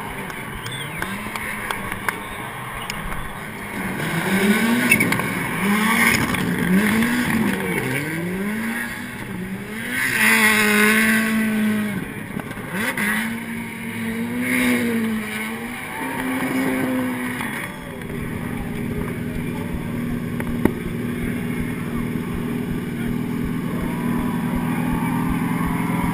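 Rallycross race cars running on the track, engines revving up and dropping again and again through corners and gear changes, with one loud close pass about ten seconds in. Later the sound settles into a steady engine drone.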